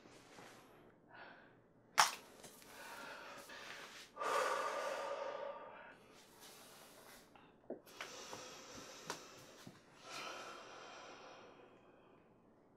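Soft rustling of hair and clothing and breathy sounds from a woman getting dressed, with a sharp click about two seconds in and a couple of fainter clicks later.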